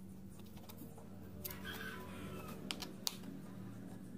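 A kitchen knife slicing through soft boiled beef and tapping down on a plastic cutting board: a few irregular sharp taps, the loudest about three seconds in, over a steady low hum.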